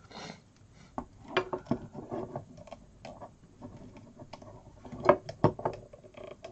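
Irregular small plastic clicks and rubbing as a toy lightsaber is worked into a plastic action figure's hand, with two sharper knocks about five seconds in.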